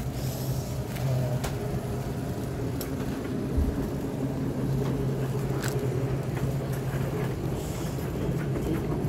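Shopping cart rolling across a supermarket floor: a steady low rumble with a low hum underneath and a few light clicks.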